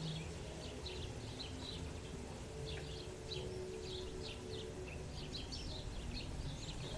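Small birds chirping: many short, high chirps scattered throughout, over a steady low background rumble.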